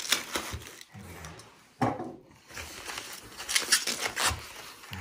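Plastic foam wrapping being pulled off a large wax candle in a cardboard box: rustling and crinkling, with a sharp scrape about two seconds in and a quick run of scratchy rips near the end.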